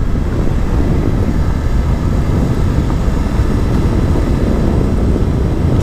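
Suzuki V-Strom 800 DE motorcycle under way: a steady low rumble of parallel-twin engine, wind and road noise, holding level without a rise or fall.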